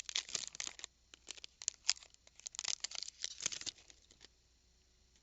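Foil Pokémon booster pack wrapper being torn open and crinkled, a run of crackling rustles that dies away about four seconds in.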